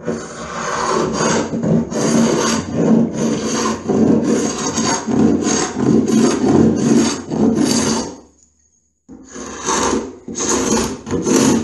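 Hand sanding of a painted wooden door edge: abrasive rubbed back and forth in quick strokes, about two a second, stopping briefly about eight seconds in and then starting again for a few more strokes.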